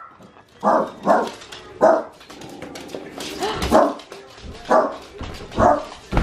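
Small dogs barking in short, sharp barks, about six of them spread over a few seconds, as they greet someone coming in the door.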